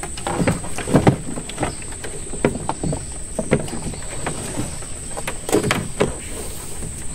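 Irregular knocks and bumps on a small wooden boat's deck and hull as someone moves about and handles gear, loudest about a second in and again between five and six seconds in. A steady high insect drone runs underneath.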